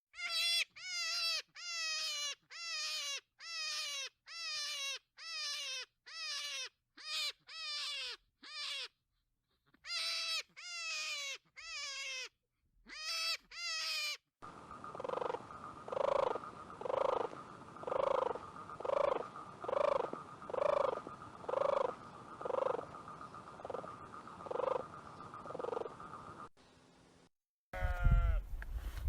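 Animal calls in two stretches. First comes a long series of short calls, each falling in pitch, about two a second with a few pauses. Then a different stretch: a steady high tone with a pulsing call repeated about two times a second over it.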